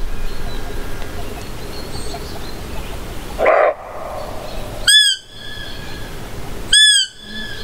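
Two short, high whistled roe deer fiep calls about two seconds apart, each rising and then dropping in pitch, the call used to lure a roebuck. About a second before them comes a brief rough, breathy sound.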